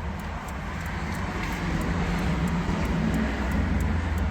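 Steady low mechanical hum, like an engine or motor running, that swells slightly near the end.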